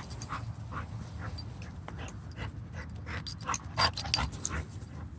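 A dog chewing a squeaky toy: short, irregular squeaks and chomps, busiest about three to four and a half seconds in, with panting.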